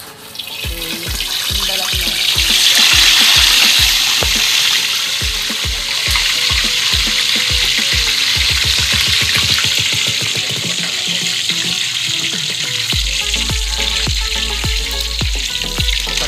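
A slab of pork for lechon kawali goes into a wok of very hot oil for its second, final fry: the oil sizzles hard, swelling over the first few seconds and then frying steadily. Background music with a steady beat plays underneath.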